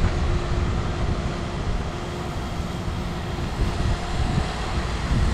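Diesel engine of an aquatic weed harvester, a paddle-wheel work boat, running steadily as it passes close by: a continuous drone with a low rumble underneath.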